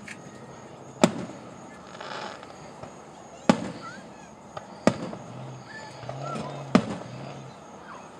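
Fireworks going off: four sharp booms one to two and a half seconds apart, each trailing off briefly, with a smaller pop between two of them.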